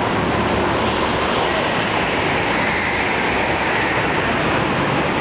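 A pack of go-karts racing on an indoor track, their engines merging into a steady, dense drone.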